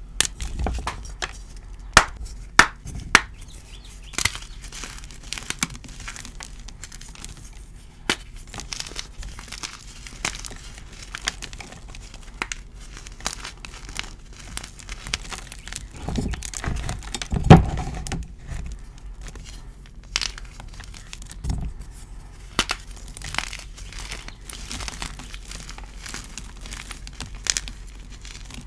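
Dyed gym chalk blocks crushed and crumbled by hand: a run of dry crunches and crackles with powdery crumbling, the loudest, deepest crunch a little past halfway.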